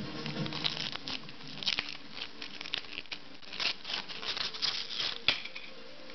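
Clear plastic wrapping crinkling and crackling in irregular bursts as it is pulled off a figure statue, with one sharp click about five seconds in.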